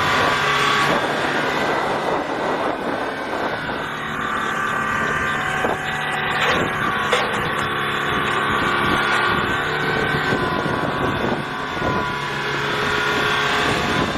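Hydraulic excavator's diesel engine running steadily, with a few knocks about halfway through.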